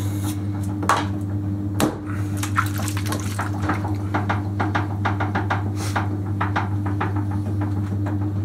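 Electric potter's wheel motor humming steadily as the wheel head spins. Over it a metal scraper scrapes the wheel head at the start, there is a single thump about two seconds in, and then wet hands centring a ball of clay make rapid squelching and slapping.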